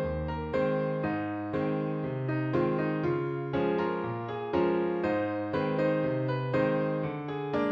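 Background music: a piano or electric piano playing a gentle melody, each note struck and fading.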